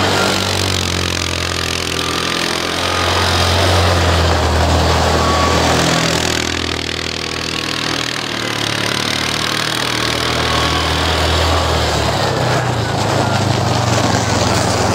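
Yamaha Rhino 450 side-by-side's single-cylinder four-stroke engine running steadily as the machine drives circles on snow. The sound drops a little about halfway through as it moves away and comes back up as it pulls in close.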